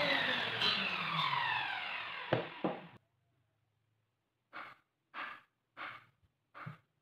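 Table saw spinning down after being switched off, its pitch falling steadily, with two sharp clicks just before the sound cuts off. Then four short soft swishes, evenly spaced about 0.7 s apart.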